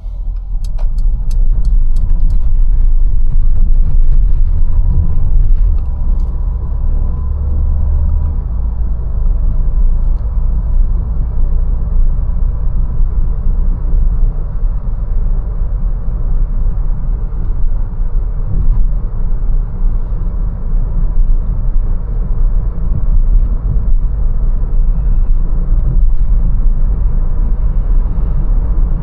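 Mercedes-Benz A180 driving, a steady low rumble of engine and road. A few sharp clicks come in the first two seconds, and the rumble is a little fuller from about three to eight seconds in.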